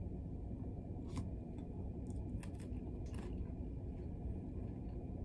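Steady low machinery hum of a ferry under way, heard inside a passenger cabin, with a few faint crisp clicks about a second in and again around two and a half to three seconds in.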